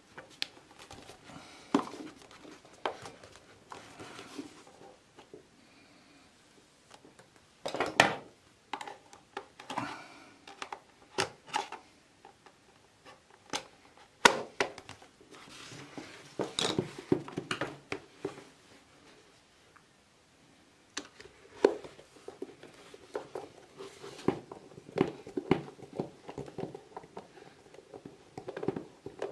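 Plastic housing of a portable fan heater being handled and fitted back together: irregular clicks, knocks and rustles, with a few sharp clacks about 8 and 14 seconds in. Near the end a screwdriver works a screw into the heater's plastic base.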